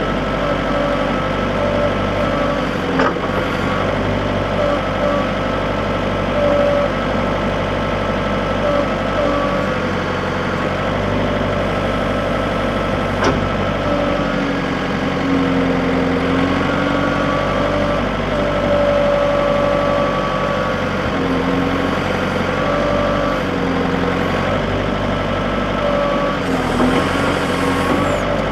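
John Deere 110 backhoe's diesel engine running steadily, its pitch dipping briefly and recovering several times, with an occasional sharp knock.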